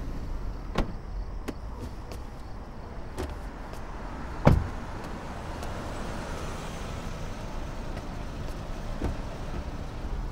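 A car engine running low and steady, with a few light clicks and one solid thump about four and a half seconds in, a car door shutting.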